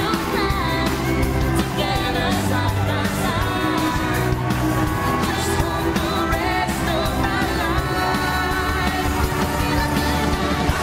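Pop song with a sung lead vocal over steady, held bass notes that change every second or so, played loud.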